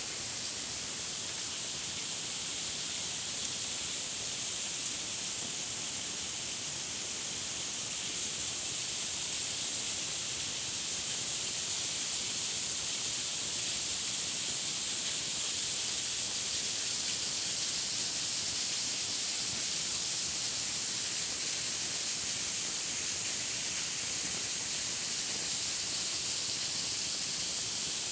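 Waterfall rushing: a steady, unbroken hiss of falling water, growing slightly louder about a third of the way in.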